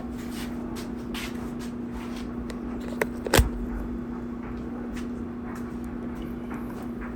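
Sheet-metal dryer top panel being handled and tapped into place: light clicks and scrapes, with two sharp knocks about three seconds in. A steady hum runs underneath.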